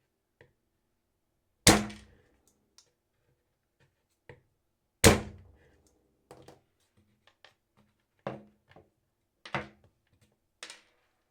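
Pliers' cutting blades snapping through 6 mm² copper wire: two loud sharp snaps about two and five seconds in, followed by several fainter clicks and knocks.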